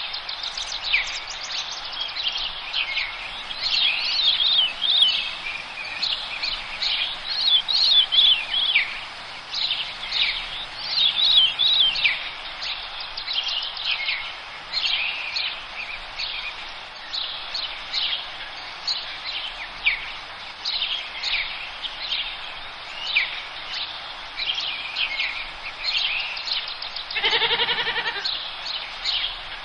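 Forest birdsong: many small birds chirping and trilling in quick, overlapping high phrases over a steady background hiss. Near the end a louder, harsher call with many overtones breaks in briefly.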